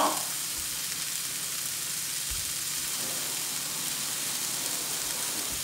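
Sliced white onions sizzling with a steady hiss on an electric griddle heated to 400 degrees.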